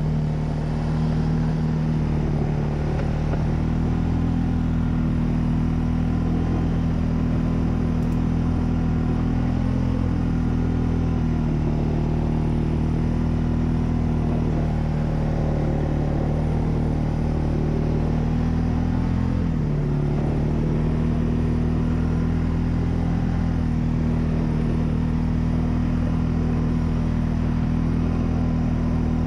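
2004 Suzuki Eiger 400 ATV's single-cylinder four-stroke engine running steadily under load while plowing snow with a front blade. The engine pitch dips briefly about twenty seconds in.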